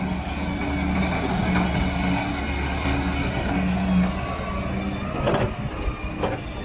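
Diesel engine of a Daewoo wheeled excavator running while it digs and swings its arm, its drone swelling and easing as the hydraulics load it. Two sharp knocks come near the end, about a second apart.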